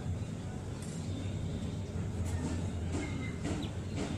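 Steady low background hum with a few faint light ticks from handling a small device.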